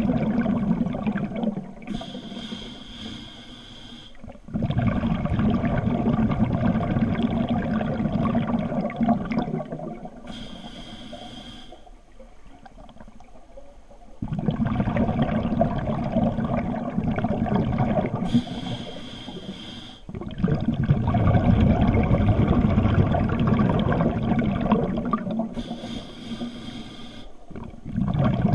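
Scuba diver breathing through a regulator underwater: four breaths about eight seconds apart, each a short hissing inhale followed by several seconds of loud bubbling as the exhaled air leaves the regulator.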